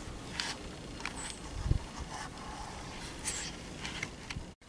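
Soft rustling and shuffling of a person moving in a wooden box stand, close to the microphone, with one low thump a little under two seconds in.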